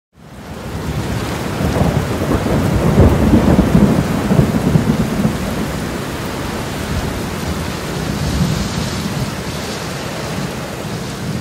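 Steady rush of whitewater rapids, with a deeper rumble that swells a couple of seconds in and eases off after about five seconds.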